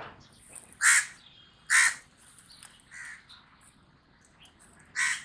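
Common raven calling: harsh, hoarse croaks, two loud ones about a second apart, a fainter one, and another loud one near the end.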